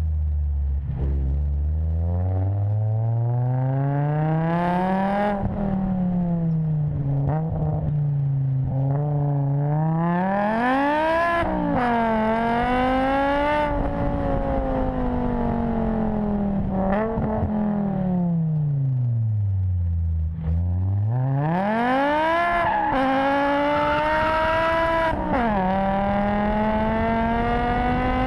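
BMW M5 engine and exhaust under hard acceleration, heard from the outside of the car: the revs climb, drop sharply at an upshift, then fall away for several seconds as the car slows. It then pulls again through two quick upshifts, revs rising steadily near the end.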